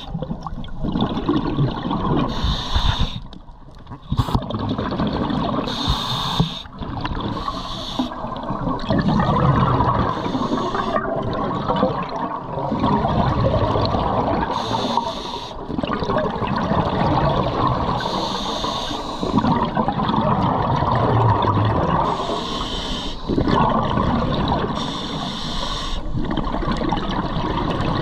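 Scuba diver's regulator breathing heard underwater: short hissing inhalations every few seconds, between long rushes of exhaled bubbles.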